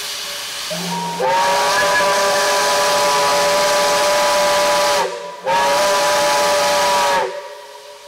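Steam hissing from a Shay geared steam locomotive, then its whistle blows two blasts: a long one of about four seconds and a shorter one of about two, several notes sounding together. The hiss carries on more quietly after the whistle stops.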